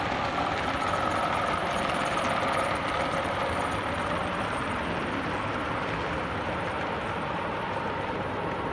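O gauge model diesel locomotives and their coaches running along the layout: a steady running noise with a faint, even whine.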